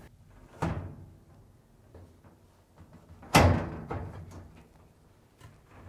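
A Samsung dryer's front assembly being fitted into the cabinet: a few clunks and knocks as it is set against the frame, the loudest about halfway through, with faint ticks between.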